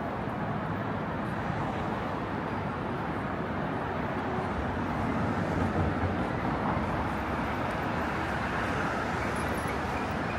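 Steady city street traffic: a continuous rush of passing road vehicles, swelling slightly about halfway through.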